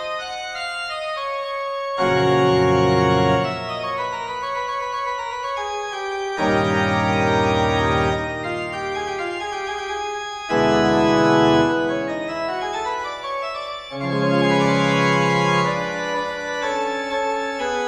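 Background organ music: slow, sustained chords, with a new, louder low chord coming in about every four seconds.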